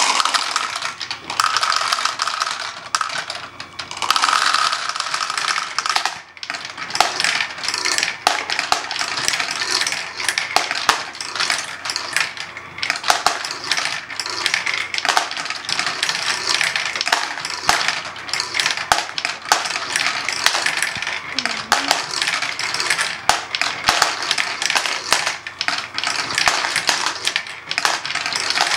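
Small plastic balls clattering and rattling through a Lego Great Ball Contraption ferris-wheel module in a dense, continuous run of clicks. It starts abruptly as a load of balls is poured in.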